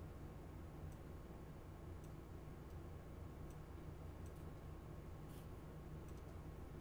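Faint computer mouse clicks, a few sparse single clicks and some quick pairs, over a steady low hum.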